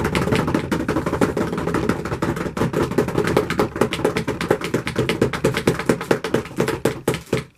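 Hands drumming rapidly on a tabletop as a drum roll: a fast, loud, unbroken run of knocks that stops near the end.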